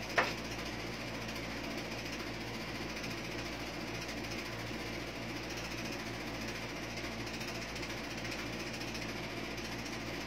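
Steady mechanical whirring with a fine, rapid rattle and a low hum, as of a small motor running, and one short click just after the start.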